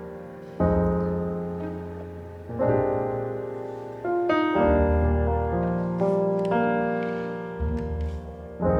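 Background music: soft piano chords struck and left to ring, a new chord every second or two.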